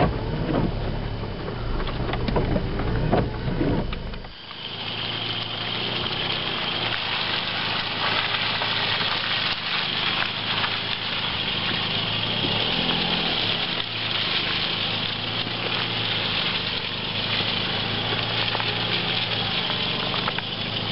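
1998 Kia Sportage's 2.0-litre petrol engine running as the SUV drives a rough forest track. At first it is heard from inside the cabin as a deep rumble. After a sudden cut about four seconds in, it is heard from outside as it approaches, a steady low engine hum under a steady hiss.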